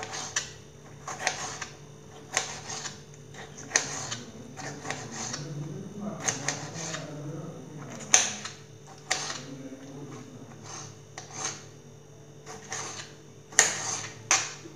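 Kitchen knife chopping a tomato into small pieces on a cutting board: irregular knocks of the blade on the board, often in quick pairs.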